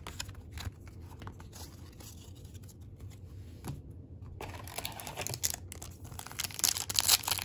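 Soft handling of trading cards, then, from a bit past halfway, the crinkling and tearing of a baseball card pack's foil wrapper, getting louder near the end.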